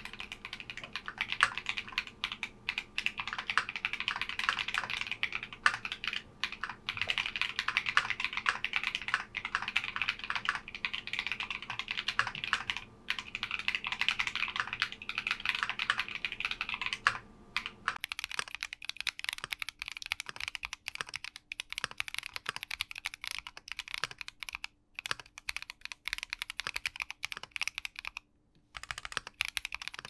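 Steady, fast typing on an aluminium-cased Keychron Q60 mechanical keyboard with Akko Cream Yellow switches and re-lubed stabilizers: a dense run of keystroke clacks. At first it comes through a camera microphone with a low hum under it; about eighteen seconds in it switches to a stereo recorder and the hum is gone.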